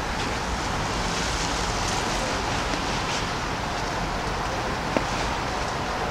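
Steady city-street ambience: a constant wash of traffic noise, with a single short sharp click about five seconds in.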